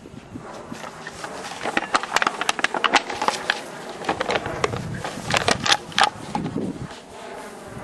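A plastic soft drink bottle crackling and clattering as a cairn terrier chews and pushes it about, in irregular flurries about two seconds in and again near six seconds.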